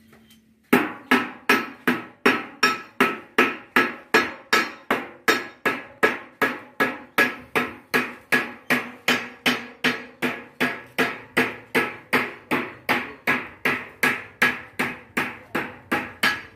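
Steady hand-hammer strikes on a stainless-steel strip, about two and a half blows a second, each blow ringing briefly with a metallic tone. The hammering starts suddenly less than a second in.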